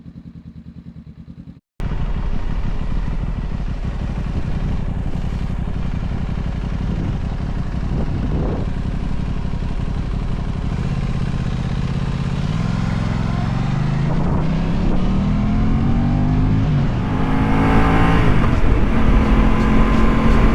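Aprilia RS 660 parallel-twin motorcycle engine running under way with wind noise. A quieter steady hum cuts abruptly to the louder riding sound. In the second half the revs climb and drop several times as the bike accelerates through the gears.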